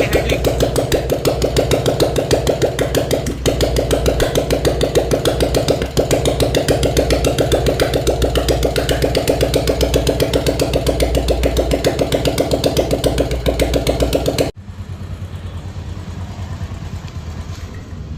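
Royal Enfield 350cc single-cylinder engine running at a steady idle with a fast, even beat after its damaged bearings were replaced. About fourteen seconds in, the loud running cuts off abruptly and a quieter, lower engine sound carries on.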